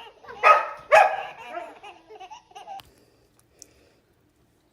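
A dog barking twice, the barks about half a second apart.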